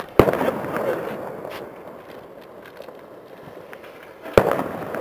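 Two sharp firework bangs about four seconds apart, the first and louder one trailing off in about a second of crackle.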